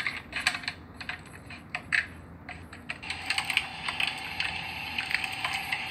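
A run of light clicks and knocks, then about three seconds in an electric meat grinder starts and runs with a steady hum as it begins grinding cubed meat and saltwater taffy.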